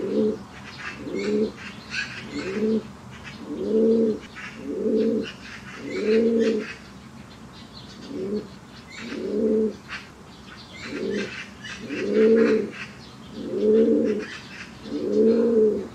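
Domestic pigeons cooing over and over, a low rounded coo roughly once a second, some drawn out longer than others. Fainter high chirps come and go above the coos.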